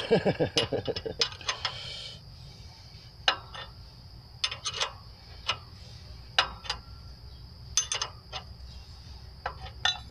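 Small steel hardware clicking and clinking at irregular moments as the mounting bolt and spacer of a moped's rear shock absorber are worked free of the mount and handled.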